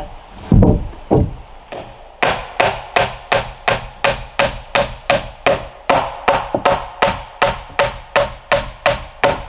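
A couple of heavy thuds of lumber being set down on the wooden frame, then a hammer striking steadily at about three blows a second, driving nails into the board frame.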